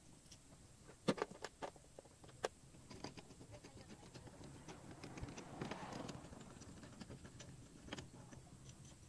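Faint, scattered clicks and taps of steel puller-kit parts being handled: the threaded extension rods of a bearing separator kit are unscrewed and repositioned on the wheel hub.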